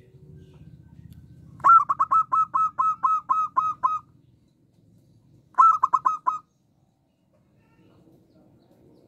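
Zebra dove (perkutut) calling in quick runs of short, clipped notes: about a dozen in a row, then after a pause a shorter run of about five.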